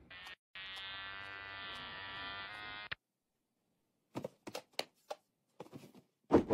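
Electric hair clippers buzzing for about three seconds as a man's head is shaved bald, cutting out briefly just after switching on and then stopping abruptly. A few short soft taps follow near the end.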